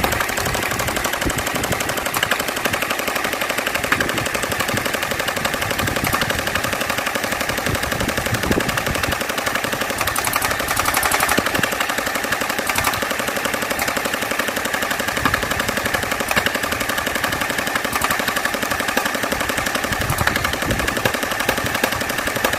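Jinming M4A1 electric gel blaster firing on full auto in one unbroken burst, a continuous fast rattle at a steady rate as it empties a full magazine. A full magazine takes about 25 seconds, a rate set by its stock battery.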